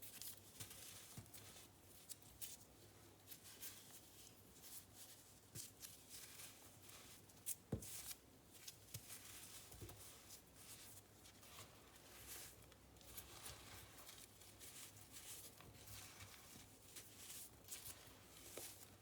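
Baking soda and cornstarch powder being pressed and squeezed, giving faint, soft, crunchy squeaks in quick irregular bursts. One louder crunch comes about eight seconds in.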